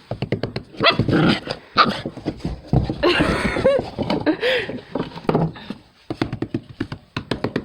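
A puppy yipping and whining in short cries that rise and fall, among quick runs of short wheezing pulses from a person's laughter.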